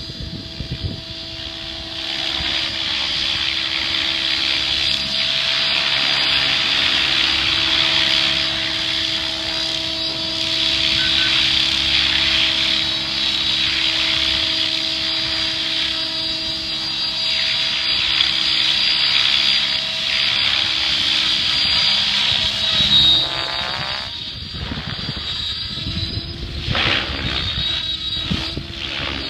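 Electric Synergy 766 RC helicopter in flight: a steady motor whine under the rushing swish of its rotor blades. The sound swells and fades as it manoeuvres, then drops lower after about 24 seconds.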